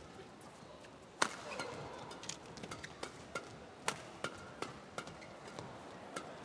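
Shuttlecock struck back and forth by badminton rackets in a fast doubles rally: a string of sharp hits at uneven intervals, the loudest about a second in, then roughly one or two a second.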